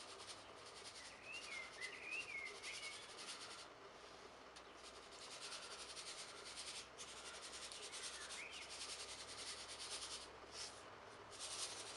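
Faint, soft granular hiss of vanilla sugar trickling from a paper sachet onto a cut pomelo half, in several stretches with short pauses. A few faint chirps come through between about one and a half and three seconds in.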